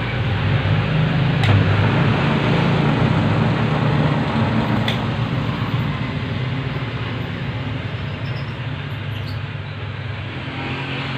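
Metal lathe running with a steady motor and gearbox hum, with a couple of faint clicks.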